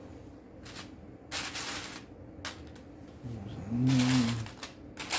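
Plastic Lego pieces being handled and sorted, with rustling and small clicks in short bursts. Near the end a brief low hum of a man's voice, rising and falling, is the loudest sound.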